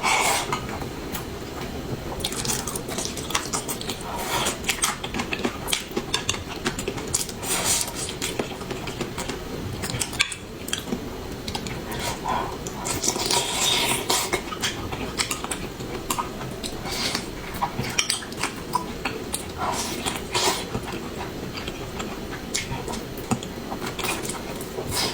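Utensils clinking and scraping against dishes and bowls: many short, irregular clicks over a steady low background.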